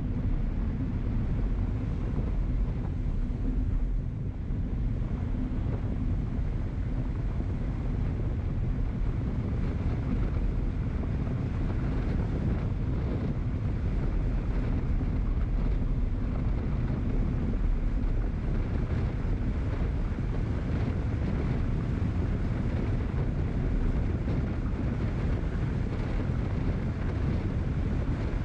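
Steady wind rumble on the microphone of a camera moving along a wet street, with road noise from the ride underneath.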